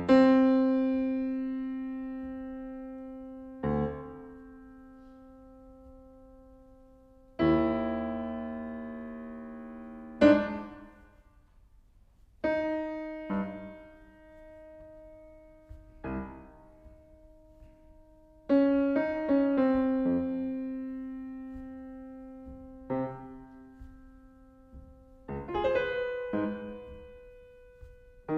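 Yamaha CFX concert grand piano playing a slow, sparse passage. Single notes and chords are struck every few seconds and left to ring and fade. It is recorded through a Panasonic WM-61A electret capsule.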